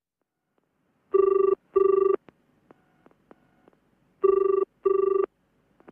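Telephone ringing in a double-ring pattern: two short rings, a pause of about two seconds, then two more, followed by a couple of faint clicks at the very end.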